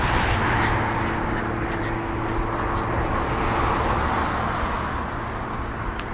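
Highway traffic noise: the steady rush of tyres and engines of cars passing on the road, easing slightly near the end.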